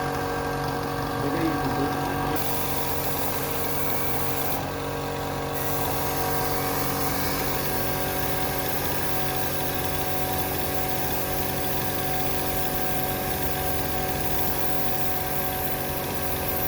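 Electric spray gun's small motor running steadily with a high hiss, spraying coating material.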